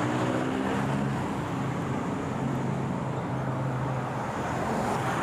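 Street traffic noise with a steady engine hum from nearby vehicles, picked up by a phone microphone on a moving bicycle.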